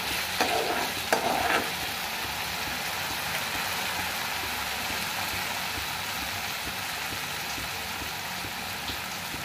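Onion-tomato masala with green peas sizzling in a kadhai as it fries down, a steady frying hiss. A slotted spatula scrapes through it a couple of times in the first second and a half.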